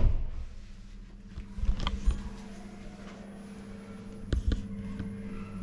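Quiet room tone with a steady low electrical or fan-like hum, broken by a few light clicks and knocks about two seconds in and again past four seconds.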